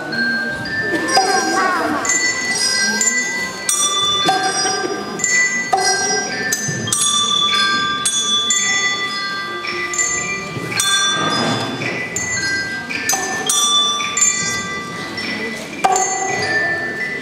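A slow melody played on tuned bells or chimes, each note struck separately and left to ring over the next. Voices can be heard faintly underneath.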